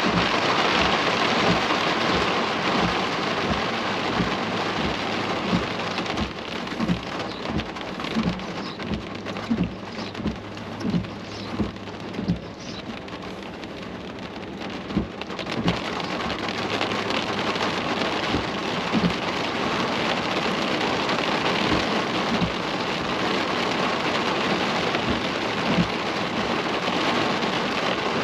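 Heavy rain hitting a car's roof and windshield: a steady hiss full of sharp individual drop hits, the hits thickest in the middle.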